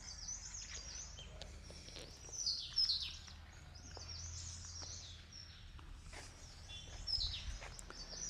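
Wild birds chirping in the garden trees: a series of short, high calls that sweep downward, the loudest ones about two and a half to three seconds in and again near the end, over a faint steady low hum.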